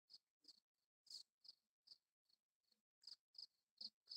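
Faint cricket chirping: short high chirps repeating about three times a second.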